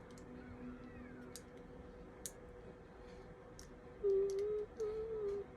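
Light plastic clicks and taps of Lego bricks being handled and snapped together. About four seconds in, a girl's voice starts humming a few held notes, louder than the clicks.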